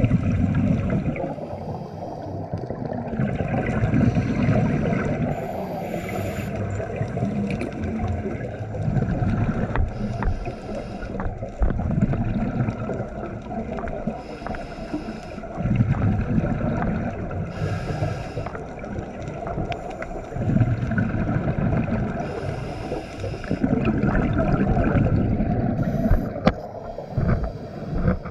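Scuba diver breathing through a regulator underwater: a short hiss on each inhale and a longer rumble of exhaled bubbles, in a cycle repeating every few seconds.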